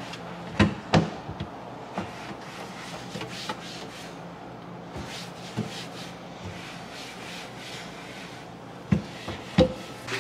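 Cloth wiping the inside of a wooden kitchen cabinet: soft rubbing with a few sharp knocks against the cabinet, two close together about a second in and two more near the end.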